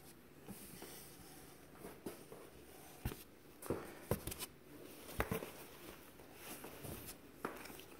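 Dresses being handled and shifted in a cardboard box: faint rustling of fabric with a few short knocks and brushes scattered through.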